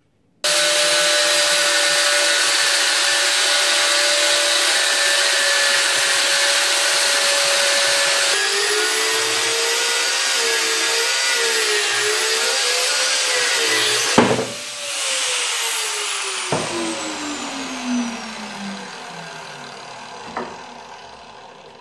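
Angle grinder with a cutting wheel starting up with a steady whine, then dropping and wavering in pitch as the wheel cuts through a steel coil-spring perch welded to a rear axle housing. About fourteen seconds in it is switched off and winds down with a long falling whine, with a couple of light knocks.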